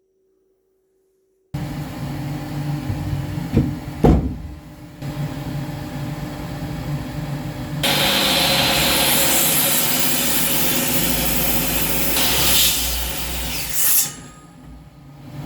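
Enkor Korvet 16 table saw running, with a loud knock about four seconds in. From about eight seconds its blade cuts through wood for some six seconds, then the cut ends abruptly.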